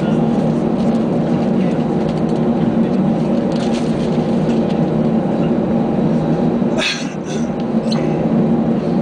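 Cabin noise of an Airbus A319 taxiing: the engines' steady hum with several constant tones. About seven seconds in, a brief clatter of sharp clicks cuts through.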